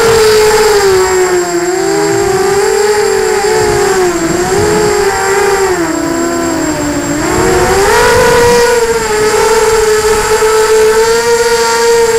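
FPV drone's electric motors and propellers whining, close to the onboard camera. The pitch wavers as the motors speed up and slow down, sagging lower through the middle and climbing back about eight seconds in.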